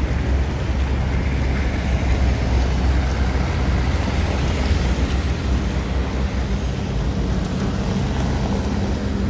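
City street traffic on a wet road: a steady low rumble with the hiss of tyres on wet asphalt from passing cars.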